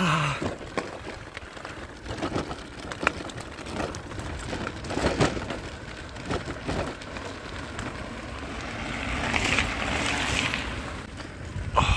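Irregular crunching and clattering of loose stones and gravel, with a stretch of louder hiss near the end.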